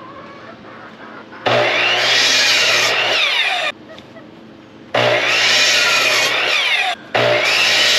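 Ryobi electric miter saw running up and cutting through a wooden board three times, each run about two seconds long, the first starting about one and a half seconds in. The motor's whine climbs as it spins up and falls away as it winds down after each cut.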